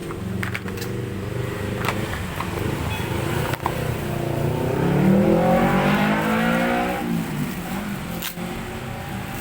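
A motor vehicle engine runs steadily, then one passes by with its pitch rising and falling and its sound swelling and fading in the middle. A few short clicks are heard among it.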